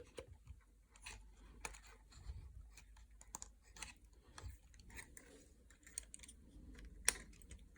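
Faint, scattered clicks and taps of small plastic drone parts being handled, with one sharper click about seven seconds in.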